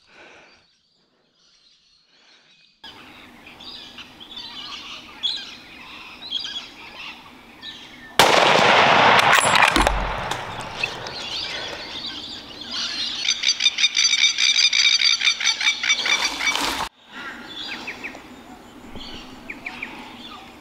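Near silence for the first few seconds, then bush ambience of small birds chirping. About eight seconds in, a loud rushing noise covers everything for about two seconds, and near the end a rapid, rhythmic trill runs for about four seconds before cutting off suddenly.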